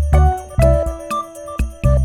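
Background music: a bright, tinkly instrumental tune over a steady bass beat.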